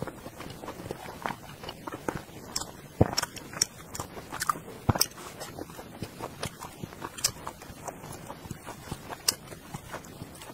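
Close-miked chewing and wet mouth sounds of someone eating pieces of braised meat in sauce: irregular smacks and clicks, the loudest about three and five seconds in.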